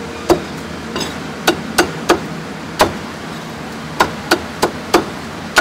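Cleaver chopping meat on a thick wooden chopping block: about ten sharp knocks in uneven runs, with a short pause midway.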